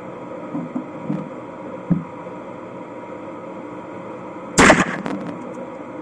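A single shot from a CBC 32-gauge single-barrel break-action shotgun firing a round-ball slug, about four and a half seconds in, with a short ring after it. Before the shot there are a few light clicks and knocks.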